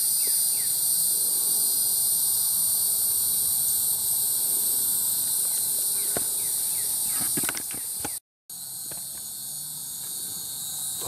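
Dense chorus of night insects, a steady high-pitched shrill drone, with a few short falling chirps in the first second; the sound cuts out for a moment about eight seconds in, then the chorus resumes.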